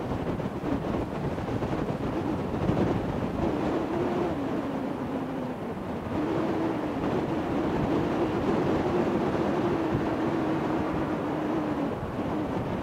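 Distant heavy diesel engine running, its pitch stepping up and down, over steady wind noise on the microphone.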